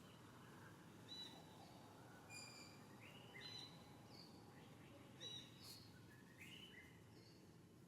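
Faint, high-pitched chirping calls: a handful of short notes, several rising in pitch, about a second apart, over a steady low background noise.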